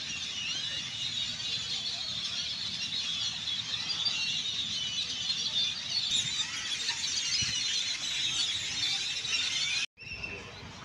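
A large flock of birds calling together, with many high overlapping chirps and whistles in a dense, unbroken chorus. The sound cuts out for a moment near the end.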